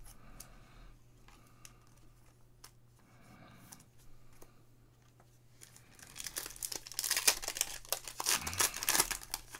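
Trading cards handled quietly with small clicks, then, from about six seconds in, a crinkly foil card-pack wrapper rustled and torn open, much louder.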